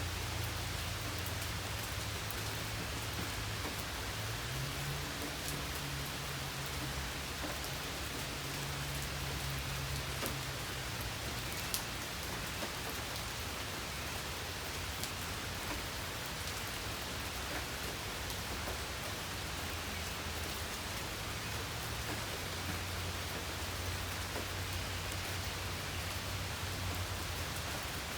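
Steady rain falling on a surface, with scattered sharper drop ticks through it. A low rumble rises underneath twice, once early and once near the end.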